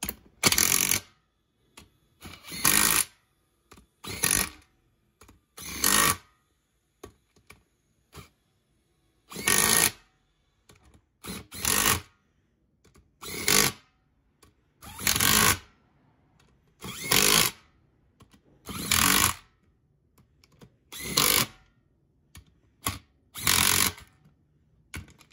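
Cordless impact tool hammering down the bolts of a beadlock ring in short bursts, about a dozen of them, each under a second long, with quiet gaps between as it moves from bolt to bolt.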